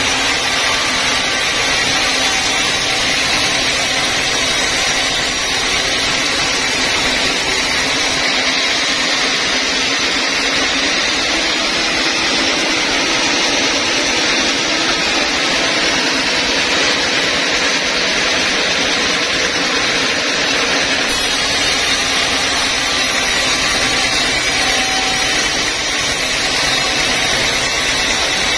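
Band sawmill cutting lengthwise through a large timber: a loud, steady noise of the blade in the wood and the mill running, with no letup.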